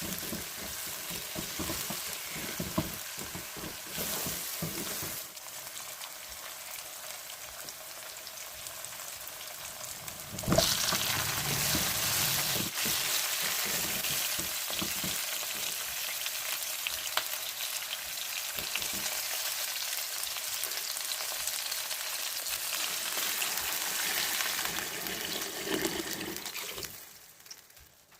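Food frying in hot oil in a cooking pan, a steady sizzle with the knocks of a spoon stirring. About ten seconds in there is a sharp knock and the sizzle suddenly gets louder; it fades out near the end.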